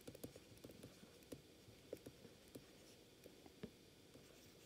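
Faint, irregular light taps and scratches of a stylus writing on a tablet, several small ticks a second against near silence.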